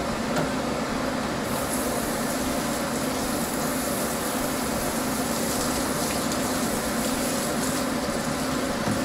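A steady mechanical hum under a rushing hiss, with no break; the hiss grows brighter about a second and a half in.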